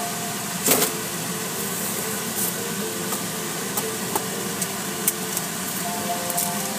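Steady vehicle noise heard from inside a car's cabin while it idles, with a few short sharp clicks, the loudest about three-quarters of a second in.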